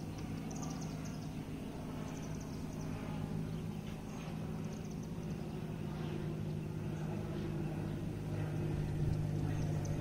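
Cessna 172 Skyhawk passing overhead: a steady piston-engine and propeller drone that grows slowly louder over the last few seconds as the plane comes closer.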